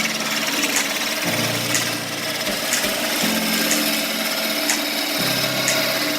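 Nova 3000 wood lathe running, with a tool or abrasive working a spinning piece of oak in a steady scraping hiss, over background music whose bass notes change every couple of seconds.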